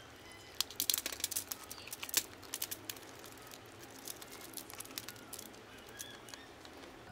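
Saucy seafood, crab pieces, corn cobs and spaghetti, sliding out of a metal bowl onto aluminium foil: a run of crinkles, clicks and soft clatters. They come thickly for the first few seconds, then more sparsely.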